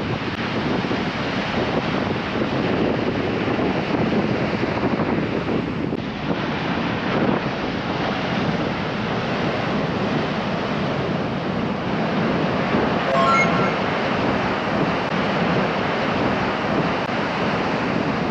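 Ocean surf breaking and washing against the foot of a rock cliff in a steady rush, with wind buffeting the microphone.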